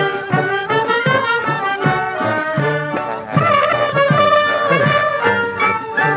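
Klezmer brass band playing live, horns carrying the tune over a regular beat in the low notes.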